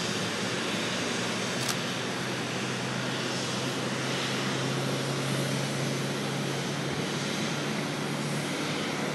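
Jet aircraft engines at an airport: a steady rushing noise over a low hum, with one sharp click about two seconds in.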